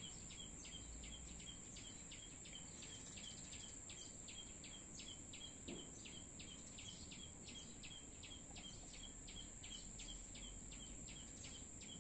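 Faint outdoor insect sound: a steady high-pitched drone, with a short chirp repeating about three times a second.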